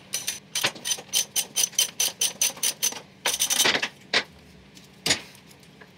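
Ratchet wrench clicking rapidly, about five clicks a second for nearly three seconds, as the motorcycle's side stand bolts are undone. A short scrape and two single metal knocks follow.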